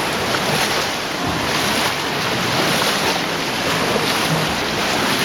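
Roar of fast-flowing floodwater in a cave stream passage, a steady rush of water pouring around the legs of a caver wading upstream against the current.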